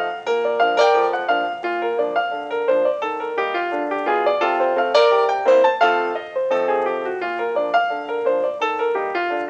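Background piano music: a quick, continuous run of notes at a steady, even pace.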